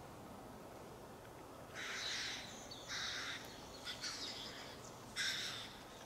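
Owl chick at the nest hollow giving four short, harsh, breathy calls about a second apart.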